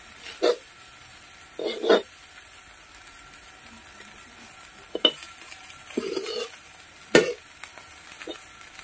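A metal spatula scrapes and knocks against a stainless steel wok as food is stir-fried, over a steady sizzle of frying. There are several separate scrapes, the loudest about two seconds in and about seven seconds in.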